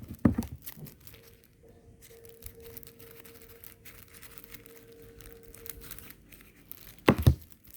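Plastic packaging crinkling and tearing as a small prize pack is pulled open, with sharp crackles at the start and a louder burst of rustling near the end.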